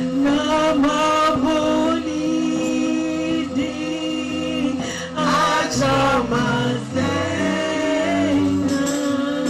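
Gospel worship music: voices singing a melody over steady held chords.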